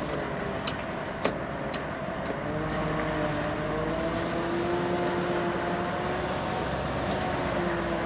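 Scania truck's diesel engine pulling under load as the truck tries to drive out of mud, its pitch rising slowly and the sound growing louder from about three seconds in. A few light clicks in the first two seconds.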